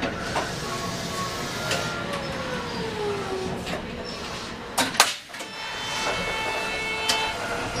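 Tram interior at a stop: a steady rumble with scattered clicks, a short falling whine about three seconds in, and one sharp knock about five seconds in.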